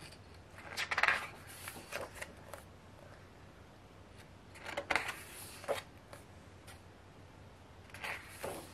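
Glossy pages of a photo book being turned and handled, with a handful of short paper rustles and slides separated by quiet pauses.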